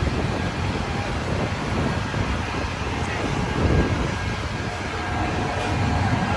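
Steady city street rumble of traffic and idling engines, with gusts of high wind buffeting the microphone, the strongest about three and a half seconds in.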